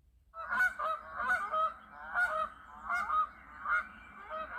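Canada goose honking: a rapid, repeated series of loud nasal honks starting about a third of a second in.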